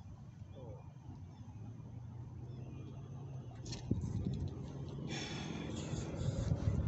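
A low steady rumble, then from about four seconds in a run of close clicks, knocks and rustling right at the microphone as the camera is handled.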